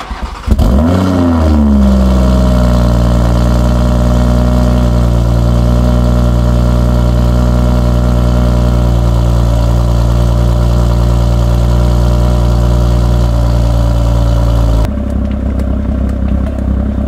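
Cold start of a BMW M340i's turbocharged 3.0-litre inline-six, heard at the exhaust tips: it catches about half a second in, flares up in revs and falls back, then runs at a steady high idle. Near the end the exhaust note drops to a noticeably quieter, lower idle.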